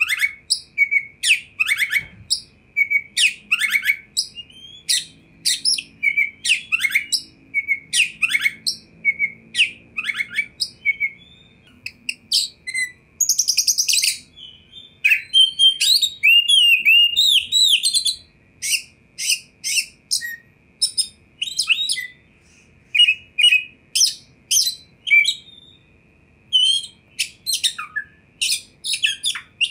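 Oriental magpie-robin singing: a fast, continuous run of short whistled notes and chirps. About halfway through it breaks into a denser passage of rapid chattering notes and sliding whistles.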